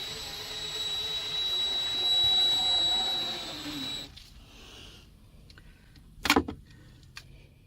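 Electric motor running with a steady high whine and hiss, sagging slightly in pitch before it cuts off about four seconds in. A single short sound follows about six seconds in.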